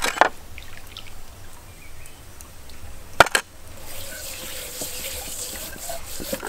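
Hands rubbing and squeezing a wet raw whole chicken in a bowl, giving wet squishing, with two sharp smacks: one at the start and a louder one about three seconds in.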